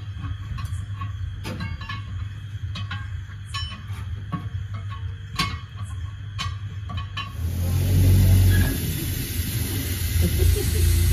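Truck tyre-changing work: scattered metallic clanks and knocks of tools and wheel parts over a low steady hum. About seven seconds in, a louder steady hiss and low rumble takes over abruptly.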